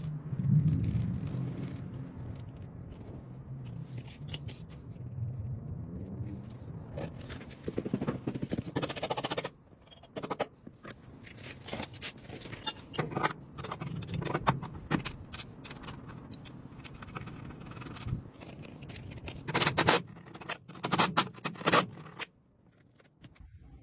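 Power tool running in short bursts while a metal garage door bracket is fastened down, with many metal clicks, knocks and scrapes between them, and two longer louder stretches of running, the second near the end.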